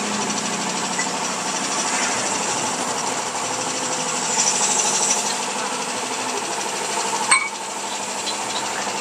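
A machine running steadily with a fast mechanical rattle, and one sharp metallic click a little after seven seconds.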